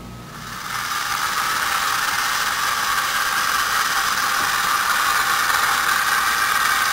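A late-1950s to early-1960s Japanese battery-operated tin toy diesel train running along its track. Its small electric motor and gears whir steadily, building to full speed within the first second.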